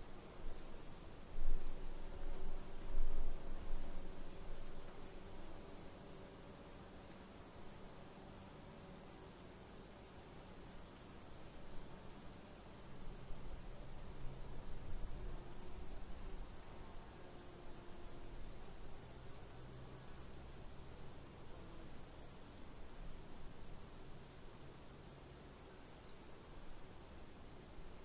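Night crickets chirping: one steady high-pitched trill with a second, fast and even pulsing chirp beneath it. A low rumble rises twice in the first few seconds.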